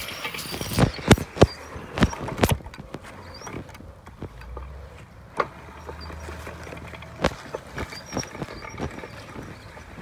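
Homemade battery-powered RC robot on a lawnmower frame driving over grass: irregular clattering knocks, thickest in the first few seconds, and a low electric-motor hum for a few seconds in the middle.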